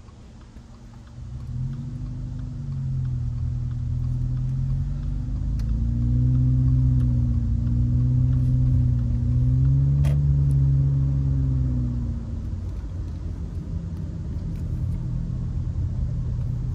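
Car engine and road noise heard from inside the cabin as the car pulls away from a stop and accelerates. The engine note climbs and drops several times as it shifts up through the gears, then settles into a steady low rumble of cruising near the end.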